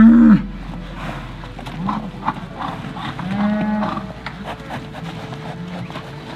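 Cattle mooing: a loud moo ends just as the sound begins, followed by several more moos, the longest and loudest about three and a half seconds in.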